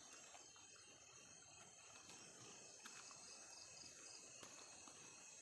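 Faint, steady high-pitched chirring of crickets and other night insects.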